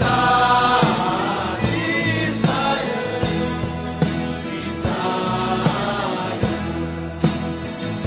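Choir singing a hymn with instrumental accompaniment: a sustained bass line and regular percussive beats under the voices.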